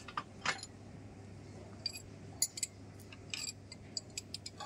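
Light metallic clinks and ticks of a steel hand wrench against the rocker arms and valve gear of a Cummins KT1150 diesel's cylinder heads. They come irregularly, a few at first and then a quicker cluster near the end.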